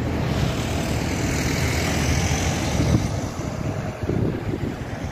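Road traffic running close by: a steady low rumble of engines and tyres, with a passing vehicle's hiss swelling early and fading away after about three seconds.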